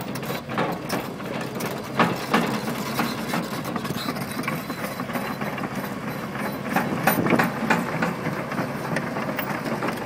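Komatsu PC350 crawler excavator travelling on its steel tracks: the diesel engine runs steadily under a constant clatter of track links and rollers, with louder knocks about two seconds in and again around seven seconds.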